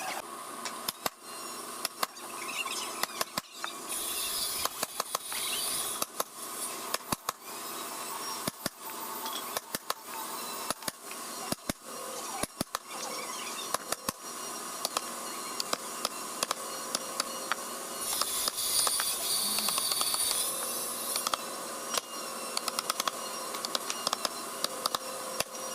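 Woodworking sounds: scattered sharp knocks and taps, with two spells of high hissing lasting a few seconds each, about four seconds in and again near the end.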